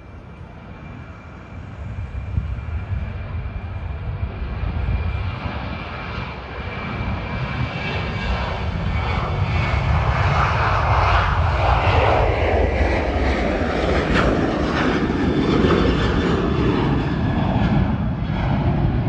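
Jet airliner's engines at takeoff power, a low rumble with a thin whine over it that builds to a loud, steady roar over the first half and stays loud as the aircraft climbs away.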